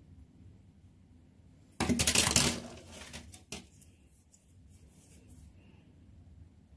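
Grey plastic miniature sprues clattering as they are handled and shifted: a short rattling burst of many small clicks about two seconds in, then a single click a second later.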